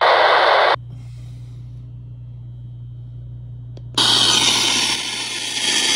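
Radio static: a loud hiss from the Baofeng handheld receiving the Flipper Zero's 433.92 MHz retransmission cuts off sharply under a second in, leaving a low hum. About four seconds in, loud steady static hiss starts again from the Flipper Zero tuned to a 462 MHz walkie-talkie channel, played through wires on its pins.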